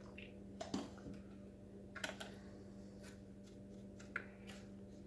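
A few faint, short clicks and light handling noises, as of a spoon or packets being moved about, over a steady low hum.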